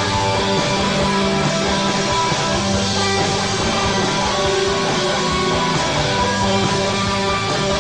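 Rock band playing live through an instrumental passage without singing, the music steady and loud.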